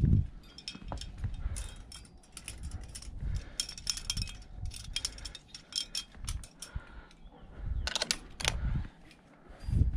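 Climbing hardware on a harness (aluminium carabiners and quickdraws) jingling and clinking with each move up the rock. About eight seconds in comes a cluster of sharper metal clicks as a quickdraw is hung on a bolt hanger. Dull low bumps sound against the microphone at the start and end.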